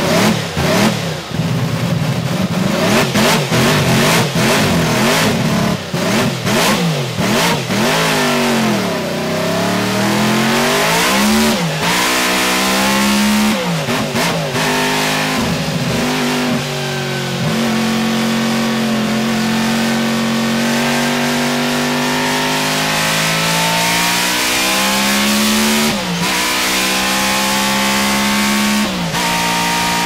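The 1.5-litre supercharged V16 engine of a 1953 BRM V16 Mk2 racing car at full cry, plausibly recorded on board. For the first several seconds the revs jump choppily, and about nine seconds in they sag and then sweep up. After that the revs climb again and again, dropping back sharply at each gear change.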